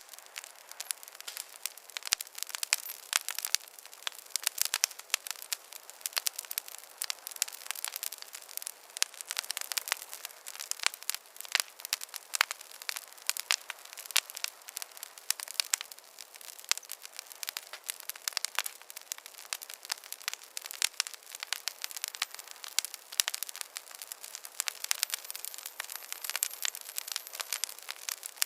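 Wood fire crackling in a fireplace: a steady stream of irregular sharp pops and snaps over a soft hiss.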